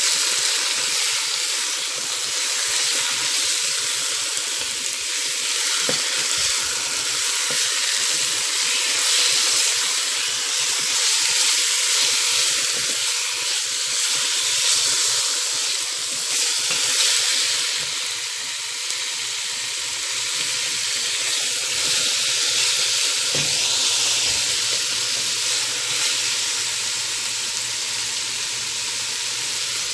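Chicken pieces sizzling steadily in a stainless steel pot.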